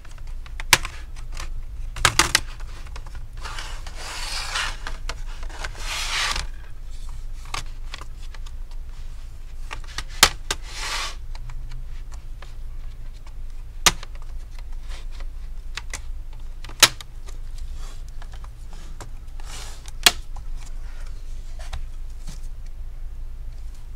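Plastic pry tool scraping along the seam of an HP 15-dy2021nr laptop's plastic case, with sharp clicks every few seconds as the case's retaining clips snap loose.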